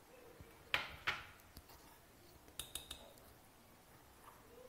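A few faint clicks and light clinks of a plastic measuring spoon knocking against a glass mixing bowl as chili powder is tipped in: two clicks about a second in, then a quick cluster of small clinks with a short ring in the middle.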